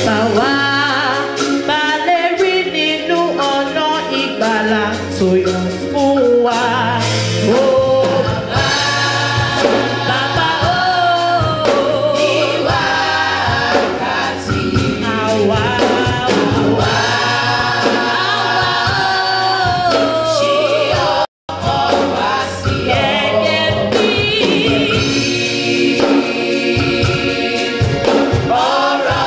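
Youth gospel choir singing with instrumental backing. The sound cuts out completely for a split second about two-thirds of the way through.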